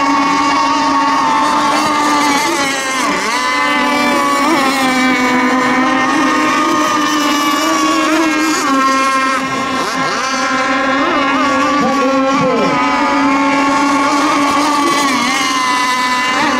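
Several radio-controlled race boats' small engines running flat out together, their overlapping high-pitched whine dipping and climbing in pitch several times as boats pass and turn.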